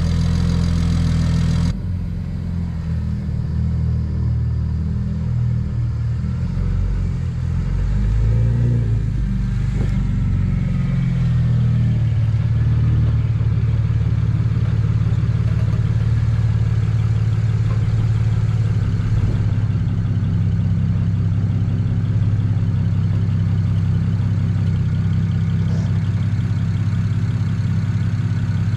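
Single-turbo BMW 335i's N54 straight-six running at a steady low engine speed. The sound changes abruptly about two seconds in, wavers for several seconds, then settles into an even hum.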